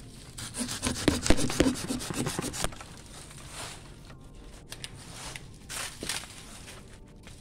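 Hand pruning saw cutting through a persimmon branch in a quick run of back-and-forth strokes for about two seconds, then stopping.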